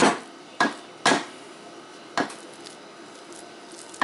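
A spatula scraping and knocking against a speckled enamel roasting pan while spreading mashed potatoes: four short strokes in the first two and a half seconds, then only faint small sounds.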